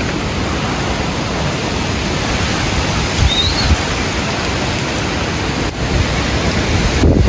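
Hurricane wind and heavy rain, a loud steady rush with uneven gusts buffeting the microphone.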